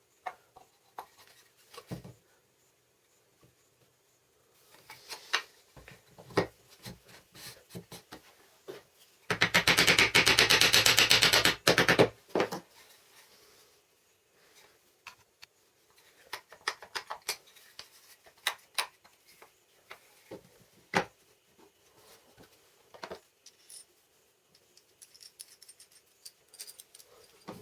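Workshop handling sounds: scattered light clicks and taps of parts and tools being handled, with one loud rapid rattling burst about three seconds long near the middle.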